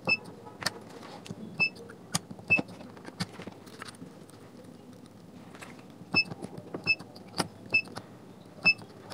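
Handheld spot-welder pen firing pulses into nickel strip on 18650 lithium-ion cells: sharp snaps as each weld fires, with short high beeps from the welder. The welds come in two runs, with a pause around the middle while the pack is repositioned.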